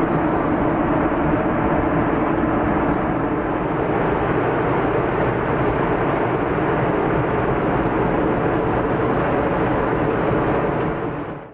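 A loud, steady rushing rumble that never pauses, fading out abruptly at a cut near the end.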